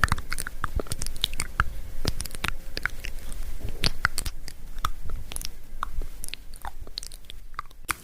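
Close-miked ASMR mouth sounds: a quick, irregular run of soft wet clicks and smacks.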